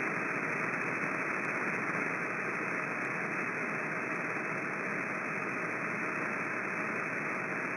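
CB radio receiver giving a steady hiss of static between transmissions, with no voice coming through.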